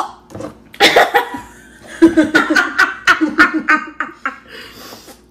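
Women laughing: a short burst, then a run of quick, loud, pulsing laughs that fade near the end.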